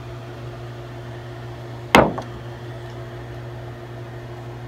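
Steady low mechanical hum, like a fan or air-handling unit, with one sharp knock or tap about two seconds in that dies away within a fraction of a second.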